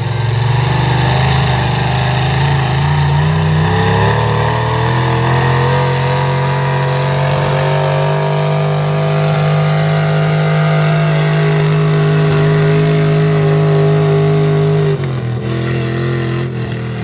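A modified pulling tractor's engine runs at full throttle, dragging a weight-transfer sled, its pitch rising slowly as the run goes on. About fifteen seconds in, the revs drop sharply as the throttle comes off at the end of the pull.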